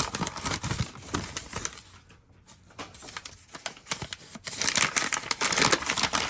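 Plastic parts packaging crinkling and rustling with scattered small clicks and taps as a package of LEGO pieces is handled and opened. It dies down briefly about two seconds in, then crinkles more densely again from about four and a half seconds.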